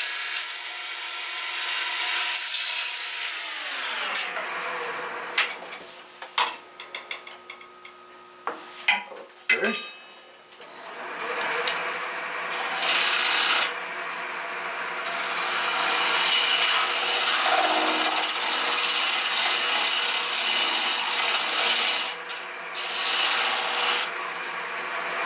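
Wood lathe spinning a yellow birch bowl, its motor hum dropping in pitch about three seconds in as the speed comes down. A few light knocks and scrapes follow, then from about halfway a turning tool cuts steadily into the spinning foot with a continuous hissing shave, pausing briefly near the end: the tenon being turned away.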